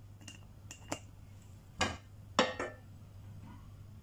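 A flat frying pan knocking and clinking against the gas hob's metal grate as it is moved: a few short, sharp contacts, the loudest two a little under halfway in and just past halfway.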